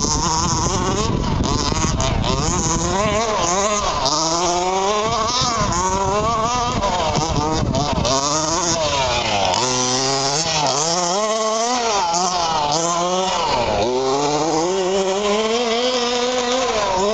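Small two-stroke engines of gas-powered 1/5-scale RC cars, revving up and down over and over as they are driven; at times more than one engine is heard at once.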